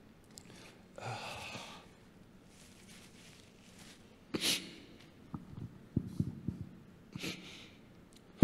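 A man's breathing and sniffing close to a handheld microphone as he holds back tears: a soft exhale about a second in, a sharp sniff about four and a half seconds in and another near the end, with a few soft knocks in between.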